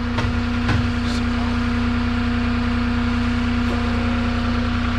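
Forklift engine running steadily at low throttle while the forklift creeps along, an even drone with a constant hum. A few light knocks sound in the first second.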